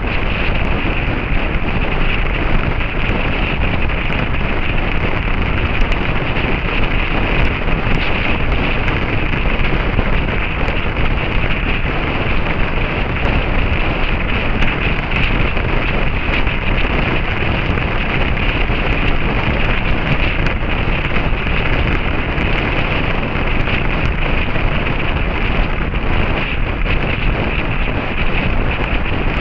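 Steady wind noise blasting over the microphone of a camera riding on a moving motorcycle.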